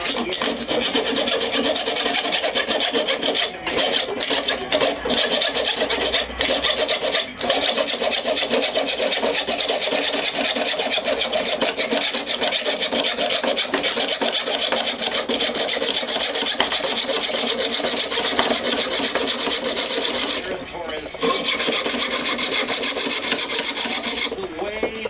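Hacksaw sawing by hand through a steel or alloy drop handlebar: a fast, continuous run of rasping strokes that pauses briefly about twenty seconds in, then stops near the end as the bar is cut through.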